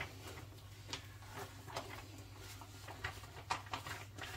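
Faint soft taps and rustles of hands shaping kneaded pizza dough on the worktop, tucking it under into a ball, over a low steady hum.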